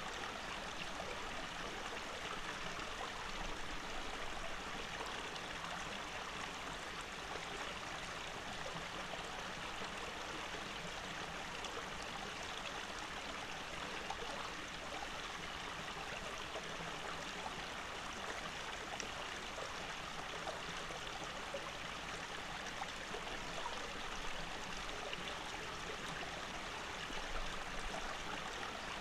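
Shallow stream running over rocks: a steady, even sound of flowing water that doesn't change.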